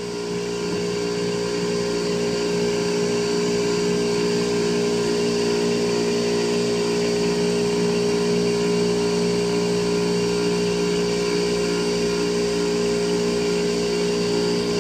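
Induction motor running as a capacitor-excited alternator, spun by its prime mover: a steady machine hum with a fixed higher whine above it.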